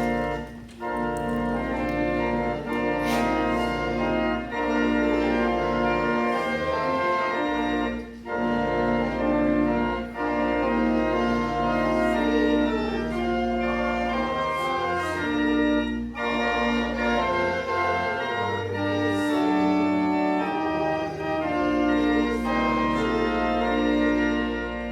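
Church organ playing sustained chords over a deep pedal bass, in phrases with short breaks between them, as music between the Bible readings.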